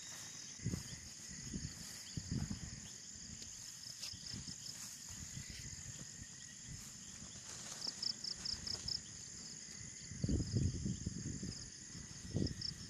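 Steady high-pitched chirring of insects such as crickets, with a short run of rapid pulsed chirps about eight seconds in. Scattered low thumps come and go over it, loudest about ten seconds in.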